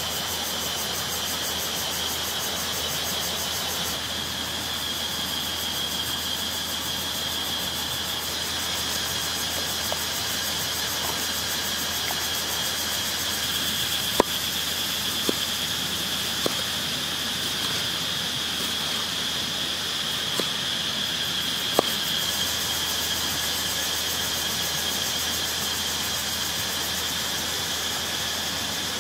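A steady, high-pitched drone of forest insects, with a few sharp knocks of a knife cutting limes on a wooden chopping board about halfway through, the first knock the loudest.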